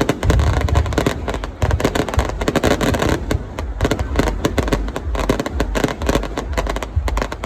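Fireworks going off in rapid succession: a dense crackle of many sharp bangs over deep booms.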